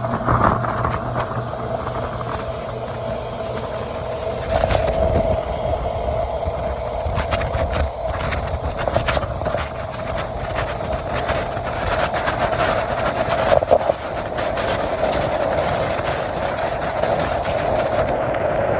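Motorboat under way: a steady engine drone with irregular knocks and rattles, likely the hull meeting the water.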